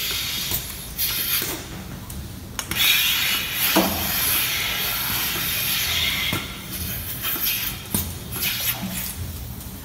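Vacuum milking machine teat cups hissing and sucking air as a milking unit is put onto a cow's teats, with several short knocks of the steel cups and hoses.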